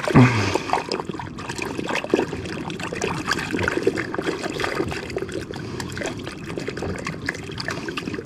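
Water splashing and sloshing as a squid tube is rinsed and squeezed by hand in a shallow rock pool, washing the ink and guts out of it.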